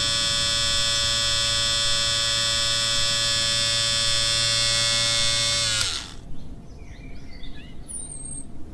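Electric hair clippers buzzing steadily, then stopping about six seconds in, the buzz dropping in pitch as it dies away.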